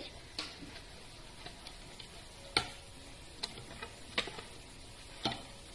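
Stainless steel wire whisk stirring dry baking ingredients in a mixing bowl: a faint scraping hiss with light clinks of the whisk against the bowl about once a second, the one about halfway through the loudest.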